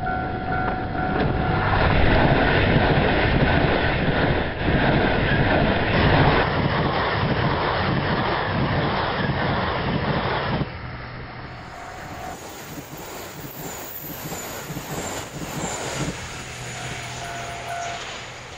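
JR Shikoku 2000 series tilting diesel express railcars passing close at speed, engines running and wheels rolling loudly on the rails. About ten and a half seconds in, the sound drops sharply to a quieter train approaching. A level-crossing warning bell rings at the start and again twice later.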